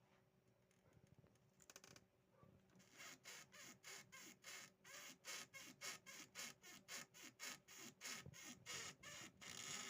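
A cat making a faint, squeaky, scratchy noise: rhythmic rasping strokes, about three a second, starting about three seconds in.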